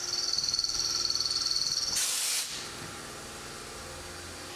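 CNC vertical mill machining steel under flood coolant: a steady high-pitched whine with a fast pulse for about two seconds, then a brief loud hiss, then a quieter steady running sound with a low hum.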